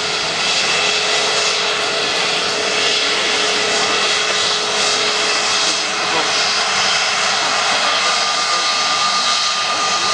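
Airbus A320 jet engines running, a loud steady rush of noise with faint steady tones; a thin high whine comes in about eight seconds in.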